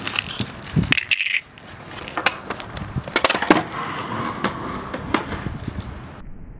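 Skateboard rolling on a concrete driveway, the wheels making a steady rumble, with several sharp clacks of the board against the concrete spread through the clip.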